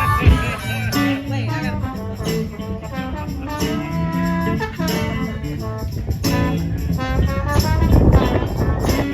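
Live rock band playing an instrumental passage: held melodic notes over drums, with a rush of noise building near the end.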